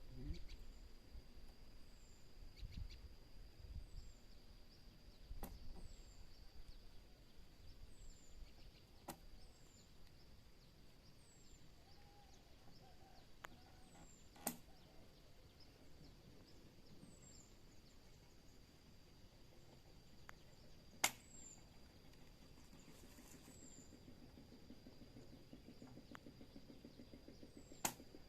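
Quiet outdoor ambience: a short high falling chirp repeats about every second and a half, most likely a bird, over a steady high-pitched insect drone, with a few sharp isolated clicks, the loudest about two-thirds of the way through.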